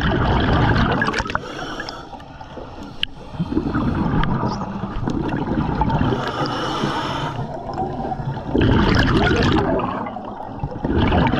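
A scuba diver breathing through a regulator underwater: exhaled bubbles gurgle and rumble in bursts a few seconds apart, with quieter gaps in between.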